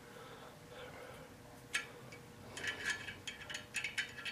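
Light metallic clicks and scraping of a hex key turning a small screw on a lathe-mounted gong-winding jig as it is tightened, a single click about a second and a half in, then quick clusters of clicks near the end. A faint steady hum underneath.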